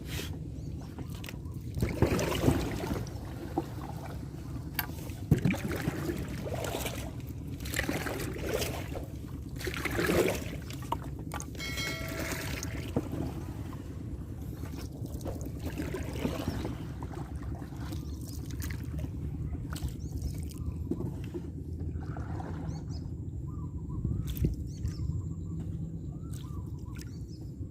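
Water sloshing and splashing around a small paddled boat, with irregular surges as the paddle strokes and the hull moves through flood water.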